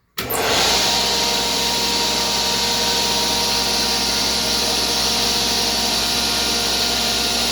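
Table saw switched on just after the start, its motor and blade coming up to speed at once and then running steadily and loudly.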